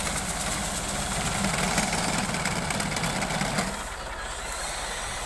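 Massey Ferguson 260 tractor's three-cylinder diesel engine running steadily while working a front-mounted wheat reaper. The sound shifts and drops slightly a little under four seconds in.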